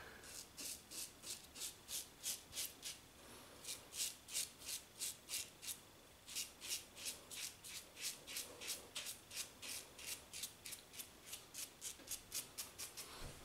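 Double-edge safety razor scraping through lathered stubble in short, quick strokes, about three a second, with a couple of brief pauses.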